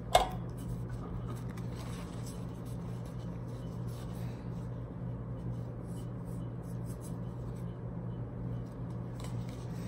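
Trading cards and pack foil being handled and shuffled: faint rustling and light taps, with one sharp click just after the start. A steady low hum underlies it.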